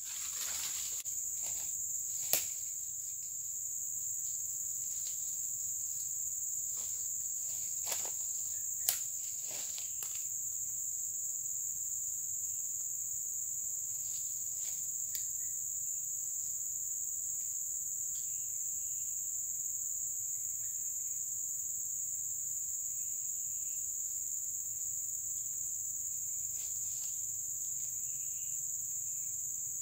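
Steady high-pitched insect chorus of tropical rainforest, with a few sharp clicks near the start and about eight seconds in.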